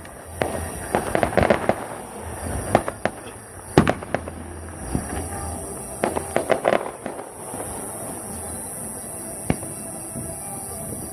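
Aerial fireworks bursting at irregular intervals: clusters of bangs and crackles about a second in and again around six and a half seconds, a single loud bang just before four seconds, and a lone bang near nine and a half seconds.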